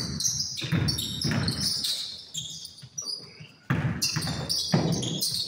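A basketball bouncing on the court during play, as a string of irregular thumps with short high-pitched squeaks over them.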